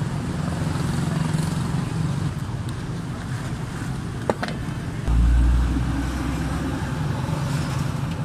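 Steady road traffic and vehicle noise. There is one sharp click about four seconds in, and a loud low rumble lasting about a second from five seconds in.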